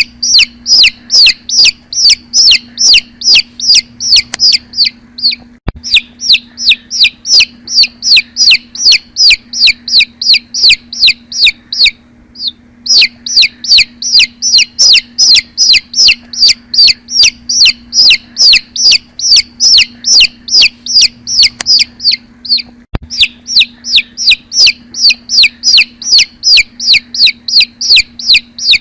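Newly hatched chicks peeping loudly and insistently: a fast, regular string of high, falling peeps, about three a second, broken by short pauses a few times, over a faint steady low hum.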